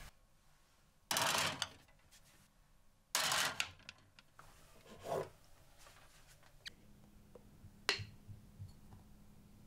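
Household objects being handled in a kitchen cabinet: two short scraping or sliding noises that fade quickly, a softer knock, then a single sharp click near the end.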